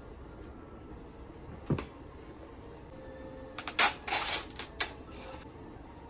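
Handling noise in a quiet room: a single sharp click, then about two seconds of crackling rustle with a few louder snaps in the second half.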